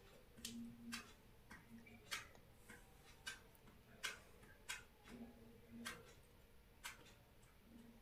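A spatula clicking and tapping faintly against a non-stick frying pan as pieces of raw banana are turned over. The clicks are sharp and unevenly spaced, about eight or nine in all.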